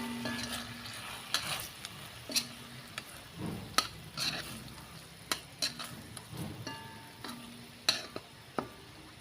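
A utensil stirring and scraping udon noodles and beef in a hot pan, with a light sizzle underneath. It makes irregular clinks and scrapes against the metal, a few of which ring briefly.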